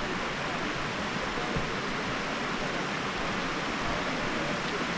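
Shallow creek water rushing steadily over low shale ledges.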